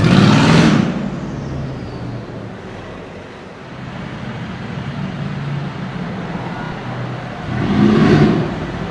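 Cars passing on a street: one loud pass-by right at the start and another about eight seconds in, with an engine running low and steady in between.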